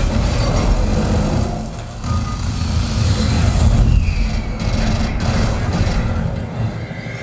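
Action film soundtrack played loud through a home theater speaker system with subwoofers and recorded in the room: dense rumbling vehicle- and machine-like sound effects with heavy deep bass.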